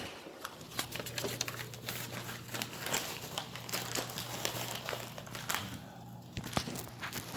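Crinkling and rustling of handled paper sheets, with many small irregular clicks, over a steady low hum.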